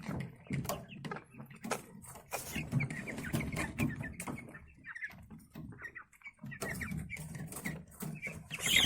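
Broiler chicks in a brooder, many short sharp clicks and rustles with faint peeps scattered through. The flock is sick with wheezing and sneezing that antibiotic treatment has not cleared.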